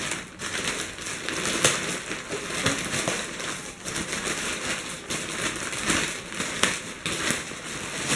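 Grey plastic poly mailer bag crinkling and crackling as it is pulled open by hand, with many irregular sharp crackles.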